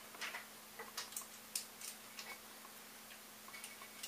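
Irregular light clicks and taps of a hard 3D-printed plastic printer part being handled, more of them in the first couple of seconds.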